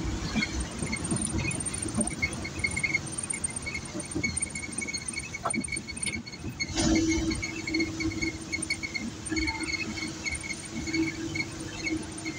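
Steady hum of a car driving slowly, heard from inside the cabin, with a high-pitched squeak repeating in quick, irregular chirps. A brief louder rush comes about seven seconds in.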